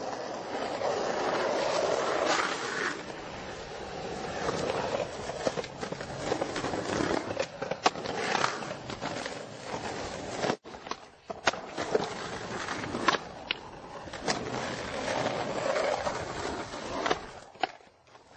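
Skateboard wheels rolling on hard ground, with sharp clacks of the board being popped and landed during tricks. The sound drops out briefly about ten seconds in.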